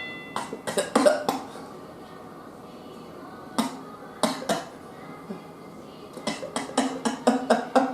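Short, sharp nasal sniffs and snorted breaths from people tickling inside their noses with twisted-paper nose ticklers to make themselves sneeze. The sniffs come scattered, with two stronger ones about halfway through and a quicker run of them near the end.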